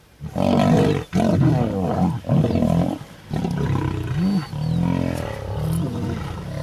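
Lions snarling and roaring while fighting, in several loud bouts broken by brief pauses.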